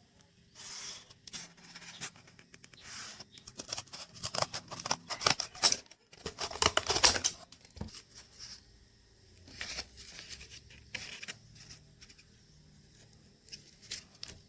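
Cardboard being cut and handled by hand: irregular snips, scrapes and rustles, busiest and loudest in the middle.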